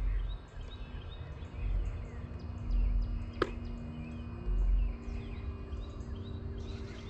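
Distant electric motors of two RC airplanes, an FMS Ranger Cessna and an E-flite Draco, droning steadily in flight; one motor's pitch rises slightly about four seconds in and then holds. Birds chirp throughout, low wind thumps hit the microphone now and then, and a single sharp click comes about three and a half seconds in.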